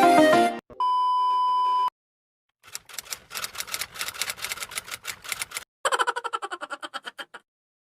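A steady beep lasting about a second, then after a short silence two runs of rapid clicks, about eight a second, like typing; a faint high whine runs under the second run.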